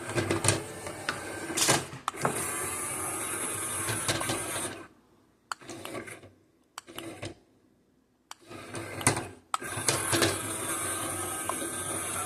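Small battery-powered motor and plastic gears of a remote-control toy teacup whirring in spurts as the remote's buttons are pressed. It runs for about five seconds, cuts out, gives two short spurts, goes quiet for about a second, then runs again near the end.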